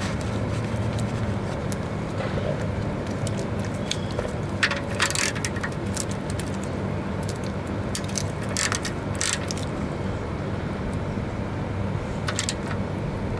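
Scattered metallic clinks and clatter of tools and parts being handled during car oil-change work, with a cluster about five seconds in and more near the middle and end, over a steady low hum.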